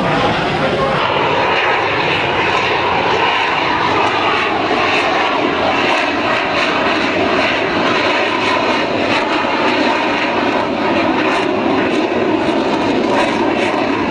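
Fighter jet engine noise from a low pass: a loud, steady rushing roar.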